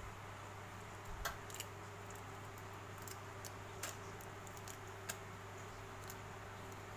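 Faint, scattered small clicks and cracks of a raw blue swimming crab's shell and body being pulled apart by hand.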